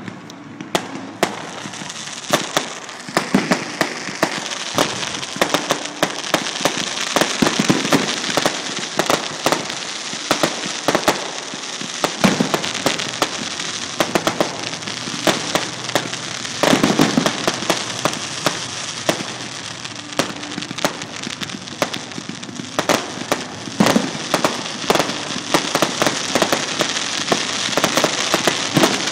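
Aerial fireworks finale: a dense, continuous barrage of bangs and crackling bursts, with heavier volleys every few seconds.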